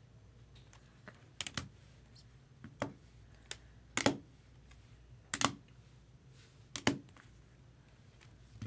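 A series of about seven sharp clicks, some in close pairs, spaced irregularly about a second apart over a faint steady hum.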